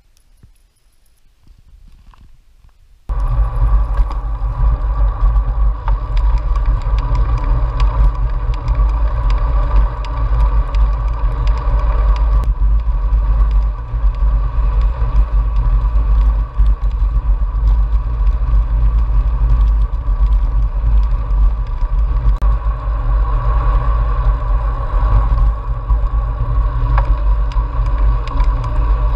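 Steady, loud rumble of wind and road noise picked up by a GoPro mounted on the handlebars of a moving road bicycle. It cuts in suddenly about three seconds in, after a quiet opening.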